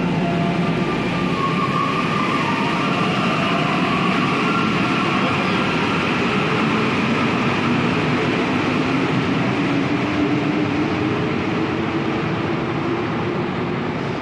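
Santiago Metro NS93 rubber-tyred train pulling out of the station: running noise with a whine that slowly rises in pitch as it gathers speed, fading near the end as it moves off.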